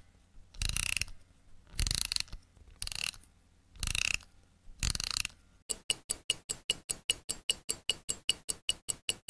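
A mechanical watch being wound by its crown, five short ratcheting bursts, then ticking steadily at about five to six ticks a second from a little past halfway.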